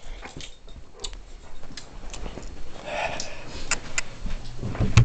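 Irregular light knocks and clicks from a handheld camera being carried while walking: handling noise and footsteps, with a short rustle about three seconds in.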